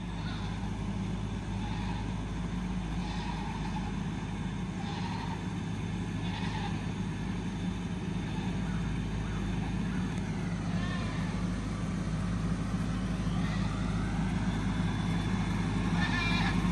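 Kubota tractor engine running steadily, growing slightly louder toward the end, with a few faint short high sounds over it.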